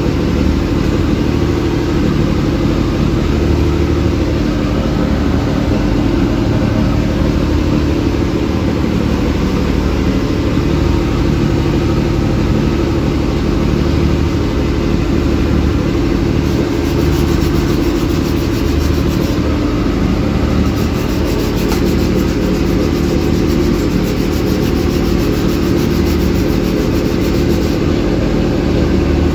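Fishing boat's engine running steadily under way, a loud, even low drone, with the rush of water along the hull.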